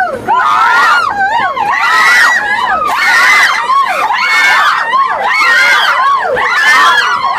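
A crowd of train passengers shouting and screaming together, many high voices overlapping without a break.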